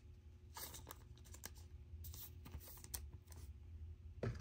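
Faint, scattered clicks and scrapes of trading cards being handled and shuffled by hand, with a few sharper ticks.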